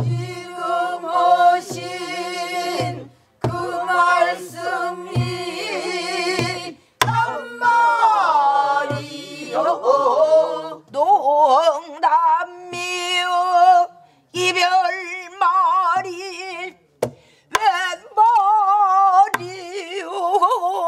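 A woman singing pansori with wide, wavering vibrato in phrases broken by short pauses, accompanied on a buk barrel drum: deep thumps on the drumhead and a few sharp stick clicks on the wooden rim.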